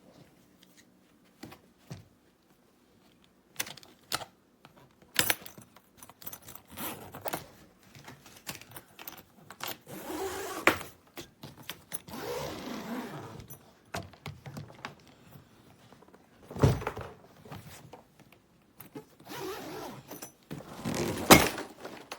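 Handling noise from a PC+ABS hardshell suitcase: scattered clicks and knocks with short stretches of rasping, and two heavier thunks in the second half.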